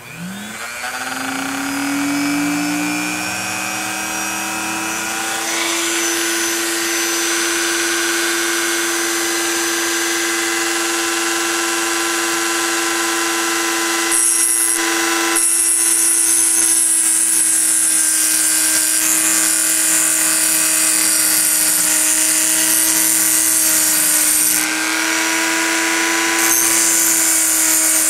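Hand-held rotary tool with a thin cutoff disc spinning up to a steady whine, then grinding a groove into a porcelain flower stem. A high grinding hiss joins the whine about halfway in, stops briefly, and resumes near the end.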